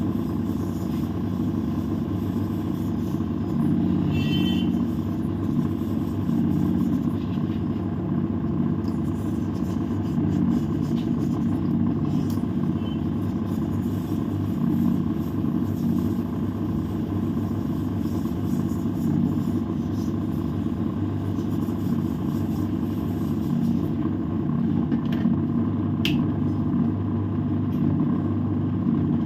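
Hot-air rework gun blowing steadily, its fan motor running with a constant hum, drying a washed TV remote's circuit board on low heat.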